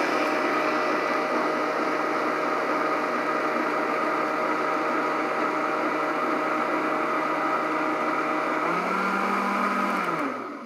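Countertop blender motor running steadily, loud, blending ice, frozen orange juice concentrate and milk into a frothy drink. Shortly before the end its pitch shifts, then it is switched off and winds down to a stop.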